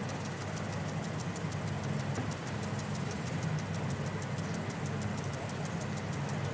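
A steady low mechanical hum, like a running engine, with faint fast regular ticking over it.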